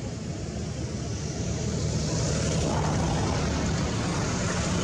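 Steady low rumble of a motor vehicle's engine, growing louder about two seconds in.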